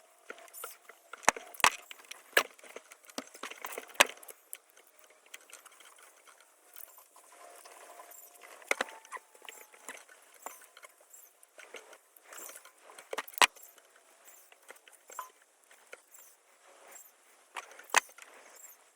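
Handling noise: scattered sharp clicks and taps with light rustling, as a pistol slide is masked with tape.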